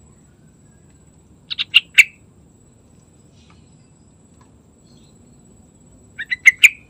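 Yellow-vented bulbul singing two short phrases, each a quick run of four or five sharp notes ending on the loudest, about a second and a half in and again near the end.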